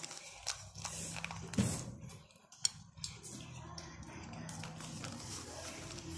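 Small clicks and taps as a hand scatters sliced dates over a bowl of creamy fruit chaat, the sharpest about one and a half and two and a half seconds in, over a faint low steady hum.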